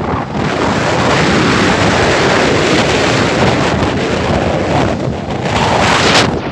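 Steady rush of wind buffeting the microphone of a moving open vehicle, with a brief sharper burst near the end.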